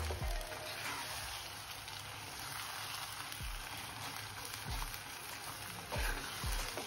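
Thick sarson ka saag (mustard-greens purée) sizzling in a pan as it is fried and stirred with a spoon.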